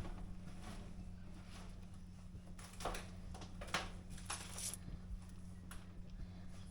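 A steady low hum, with a few brief hissing rustles in the middle.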